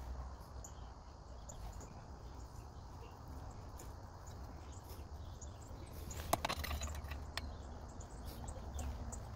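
Light clicks and taps of metal and plastic water-pump parts being handled and fitted onto an outboard lower unit, bunched about six to seven seconds in, over a faint steady background hum.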